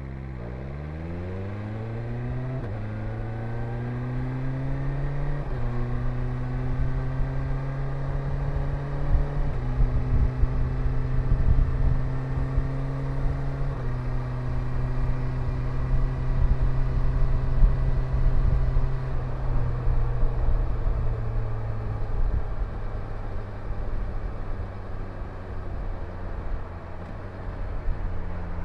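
2022 BMW S 1000 RR inline-four sportbike engine pulling hard through the gears. Its pitch climbs and drops sharply at each of four upshifts in the first 14 seconds, then holds steady and falls away slowly as the bike slows. A low wind rumble on the microphone runs underneath at speed.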